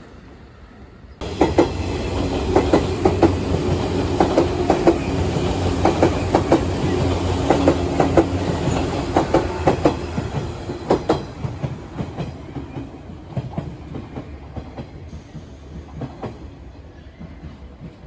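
JR West 117 series electric train running past, its wheels clicking over rail joints in a quick irregular series under a steady rumble. After about eleven seconds it fades as the train draws away.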